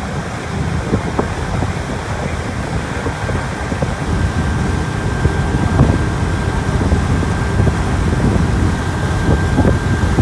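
Tender boat's engine running steadily under wind buffeting the microphone, with a thin steady whine joining about four seconds in.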